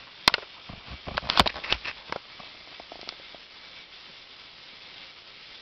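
Handling noise: a few sharp clicks and taps in the first two seconds, then a faint steady hiss.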